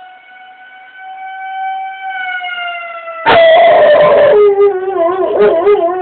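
A siren wails on a slow, gently rising and falling pitch. About three seconds in, a sudden very loud sound cuts in, and then a dog howls along with it, its pitch wavering up and down.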